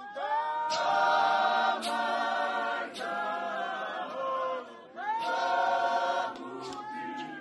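Church congregation of men and women singing a hymn together in harmony, holding long notes in two phrases with a short break past the middle. A few sharp percussive hits punctuate the singing.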